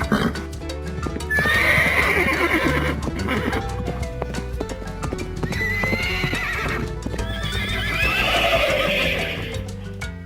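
A horse whinnying three times, each call long with a quavering, wavering pitch, over background music.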